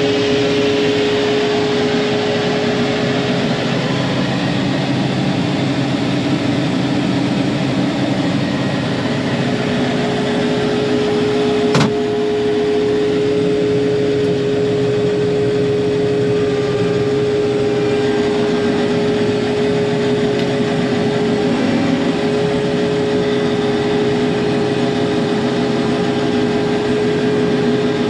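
Combine harvester running steadily while harvesting soybeans: a continuous machine drone with a constant whine over it. A single sharp click about twelve seconds in.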